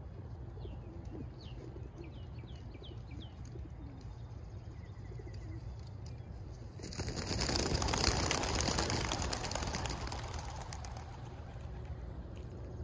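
Faint chirping of small birds, then about seven seconds in a sudden rush of wingbeats as a flock of racing pigeons takes off together on release. It swells for a second or so and fades over the next few seconds as they fly off.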